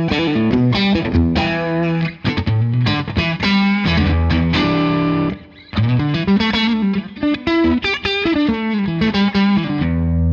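Electric guitar, a Xotic XSC-2, played straight into a Bogner Shiva tube amp set just warm enough to break up slightly, with no pedal on: chords and short melodic phrases with a light, amp-driven crunch. The playing stops briefly about five and a half seconds in, then resumes.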